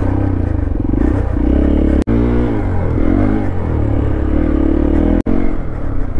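Hero Xpulse 200 4V's single-cylinder engine revving as the bike is ridden off-road, its pitch rising and falling with the throttle. The sound cuts out for an instant twice.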